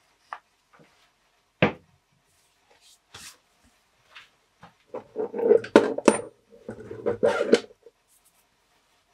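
Metal tools and lathe chuck parts being handled at a stopped wood lathe: a few scattered clicks and knocks, then about three seconds of clinking and clattering metal from about five seconds in.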